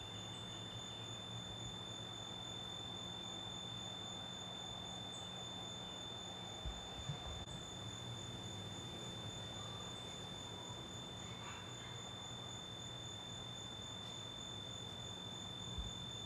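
Steady insect chirring, a high even drone with a fast pulsing shimmer above it, over a low steady hum, with a couple of brief faint knocks about seven seconds in and near the end.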